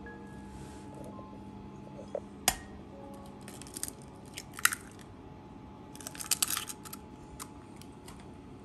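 An egg knocked sharply on the rim of a glass bowl a little after two seconds in, then the shell crackling and snapping as it is pulled open, with a second burst of shell crackling later on.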